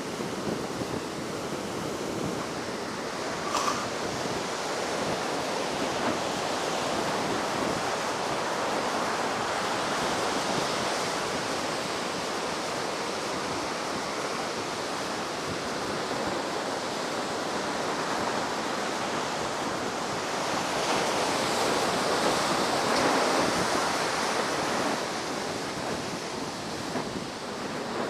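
Heavy ocean surf breaking on a sandy beach, a continuous rush of waves that swells louder about twenty seconds in; the surf is high and rough after a typhoon. Wind buffets the microphone.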